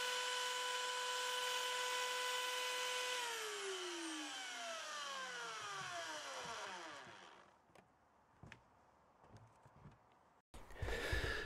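Electric belt sander running free with a steady whine, then switched off about three seconds in and winding down, its pitch falling away over about four seconds. A few faint clicks and handling knocks follow near the end.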